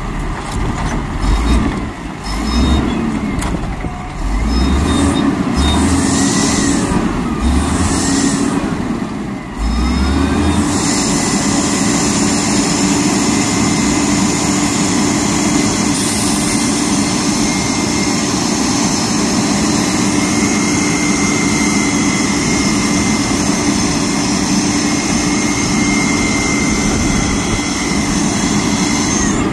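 Volvo garbage truck's diesel engine revving up and down several times with low thumps, then from about ten seconds in holding a steady high rev with a steady whine.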